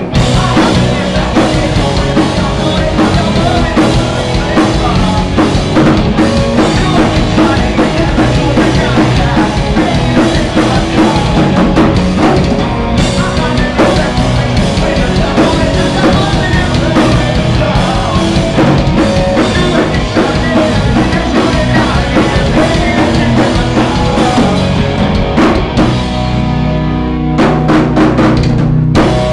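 A rock band playing live in a club, very loud and dense, driven by a pounding drum kit with kick and snare. Near the end the high end thins out and the playing becomes sparser and more stop-start.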